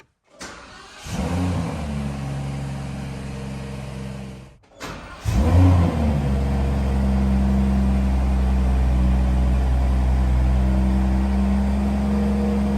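Rolls-Royce Cullinan's twin-turbo V12 starting: it catches about a second in, flares briefly and settles into a steady idle. After a short break, a second rev flare drops back to a smooth, steady idle.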